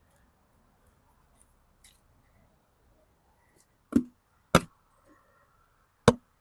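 Three sharp knocks, the first two about half a second apart near the middle and a third about a second and a half later, over faint rustling and small ticks.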